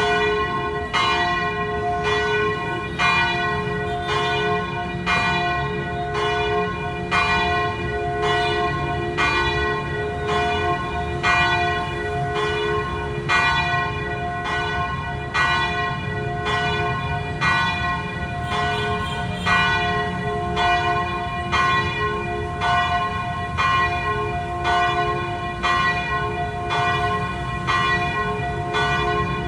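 Church bells ringing, struck about once a second, each stroke ringing on into the next so the tones overlap.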